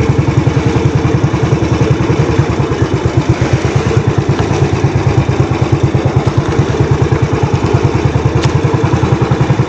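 Small outrigger fishing boat's engine running steadily under way, loud, with a fast, even pulse.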